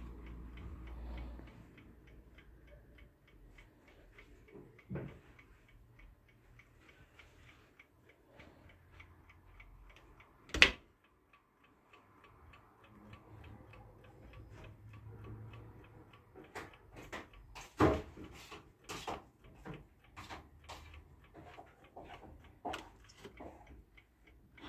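1954 Soviet wooden mechanical chess clock ticking: a rapid, steady run of faint ticks. A single loud sharp click comes about ten seconds in, and a cluster of louder clicks and knocks follows in the second half as the clock's top is handled.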